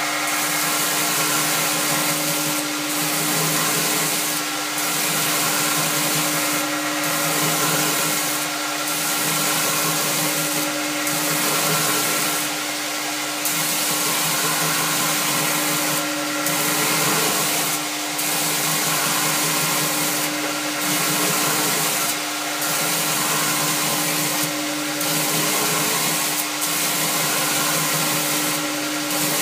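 Homemade belt-grinder surface grinder running steadily, its abrasive belt over a contact wheel grinding a flat steel bar on the table. A steady motor hum runs underneath, and a grinding hiss swells and fades about every two seconds as the table is cranked back and forth under the wheel.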